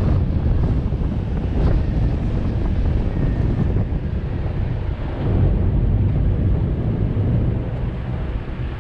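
Wind buffeting the microphone over the steady rumble of an off-road vehicle on the move.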